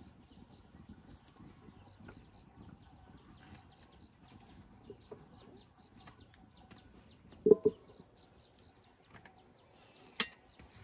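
A metal cooking pot is handled and set down on a clay wood stove, with one loud clank about seven and a half seconds in and a sharp knock near the end, over faint scattered ticks.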